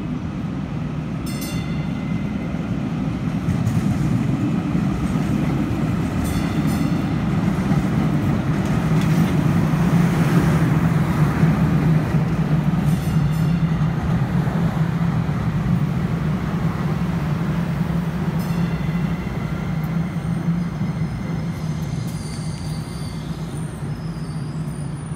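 Electric light rail train approaching and running past underneath, its running noise over a steady low hum building to its loudest about ten seconds in and then slowly fading.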